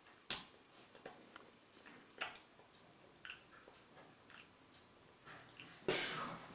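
Scattered faint clicks and taps at irregular intervals, from a person fidgeting with his hand at a table, with a longer, louder noise about six seconds in.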